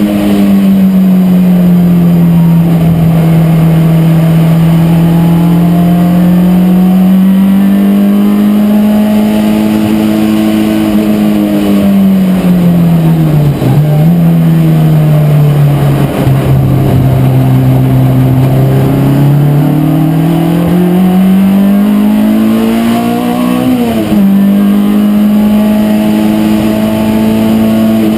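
Race car engine running hard, heard from inside the cockpit. The pitch rises and falls with the throttle, dips twice about halfway through, climbs steadily and then drops sharply at a gear change a few seconds before the end.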